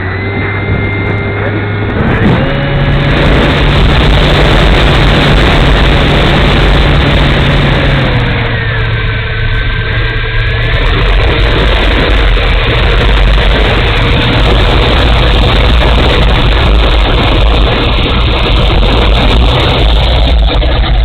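Electric motor and propeller of a small RC Hawker Tempest model running at high throttle, a whine that steps up in pitch about two seconds in and drops a little around eight seconds, under heavy wind rumble on the wing-mounted camera's microphone.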